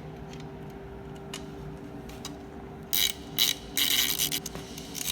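Ratchet spanner clicking in repeated strokes as a bolt is tightened into a freshly set nutsert, loading it up to test its grip. The strokes start about three seconds in.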